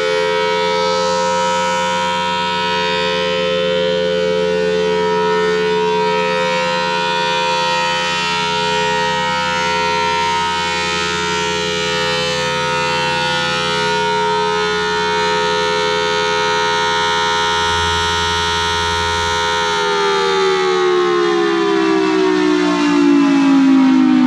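Federal Signal Thunderbolt 1003 outdoor warning siren sounding a loud, steady multi-note wail at full speed, then winding down about 20 seconds in, its pitch falling steadily.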